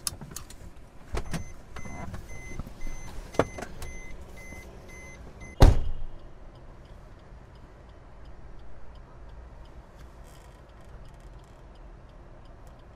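A car door shutting with one loud thump about five and a half seconds in, after a few lighter knocks and clunks; a faint, evenly repeating beep runs through the first few seconds.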